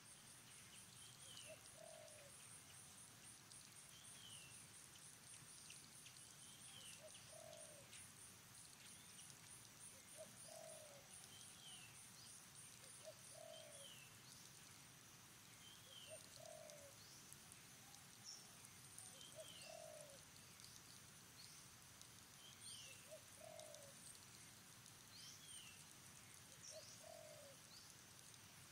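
Faint animal calls repeating every two to three seconds, one low and one higher and falling, with a high, fast pulsing buzz in the background that stops about halfway through.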